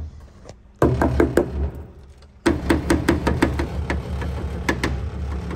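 Close-up knocking and rubbing under a car: a run of sharp knocks and clicks over a low rumble, in a short burst about a second in and a longer one from about halfway, about three or four knocks a second.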